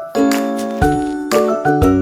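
Background music: a bright, jingly tune of quick pitched notes over a bass line.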